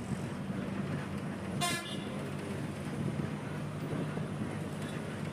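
Bus engine running steadily, heard from inside the moving bus, with one short, high horn toot about a second and a half in.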